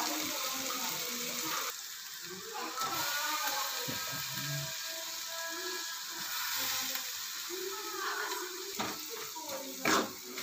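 Vegetable masala sizzling in hot ghee in a steel pan while chopped green capsicum is added and stirred in, with a faint voice in the background. A sharp knock, the steel spatula striking the pan, comes near the end.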